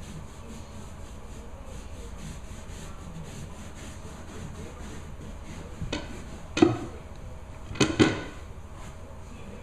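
Repeated rubbing strokes worked by hand over a rug, then a small knock about six seconds in followed by three loud sharp clunks over the next two seconds as cleaning gear is handled.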